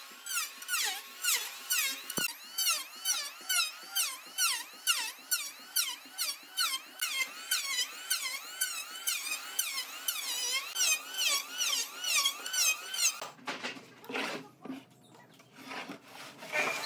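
Handheld electric planer cutting wood, its whine dipping and recovering in pitch about two to three times a second as the blades bite on each short pass. It stops about thirteen seconds in, leaving a quieter low rumble.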